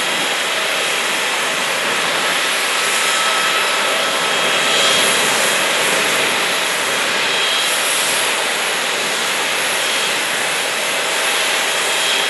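Jet engines of taxiing airliners running at low thrust: a steady rushing noise with a faint high whine over it.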